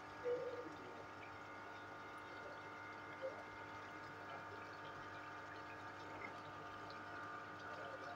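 Chicken karahi gravy simmering in a karahi over a gas flame: faint, steady bubbling under a constant hum, with a brief louder sound just after the start.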